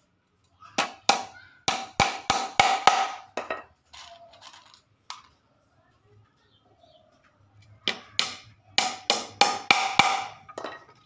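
A small hammer tapping on the wooden frame of a bird cage being assembled. The strikes come in two runs of about eight quick blows each, the first about a second in and the second from about eight seconds, each blow with a short ring.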